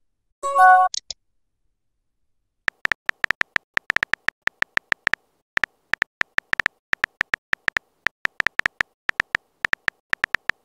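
Smartphone keyboard click sounds as a text message is typed, several taps a second from about three seconds in, with a brief pause in the middle. About half a second in there is a short electronic chime of a few notes.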